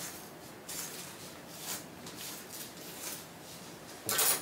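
Soft strokes of a comb brushing through wig hair, with faint rustling, and a louder short scrape or hiss about four seconds in.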